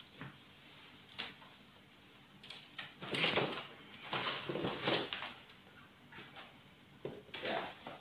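Bamboo birdcage rattling and a cloth rustling in several short bursts as a green junglefowl is caught inside the cage with the cloth.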